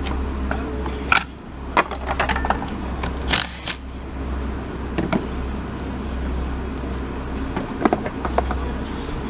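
Scattered metallic clicks and scrapes of a wrench working the negative battery terminal clamp loose and lifting it off the post, over a steady low hum.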